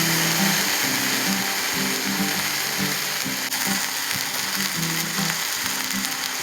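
Background song in an instrumental stretch between vocal lines: a low melody of short stepped notes over a steady high hiss.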